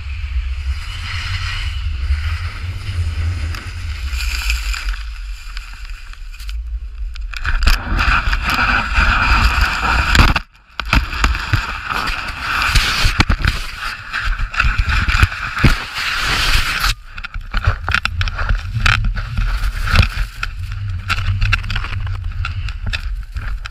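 Wind buffeting a pole-mounted action camera's microphone, with a low rumble and the rough hiss of snow rushing and scraping past, as a snowboarder is carried through a sliding avalanche and its powder cloud. The sound cuts out briefly about ten seconds in, and the hiss eases after about seventeen seconds.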